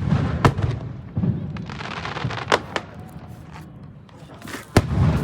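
Fireworks display: aerial shells bursting with several sharp bangs and low rumbling booms, with a stretch of crackling between them.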